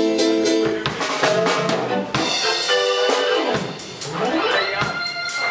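A live band's drum kit is struck in loose, uneven hits over held instrument notes: a sound check rather than a song in full swing.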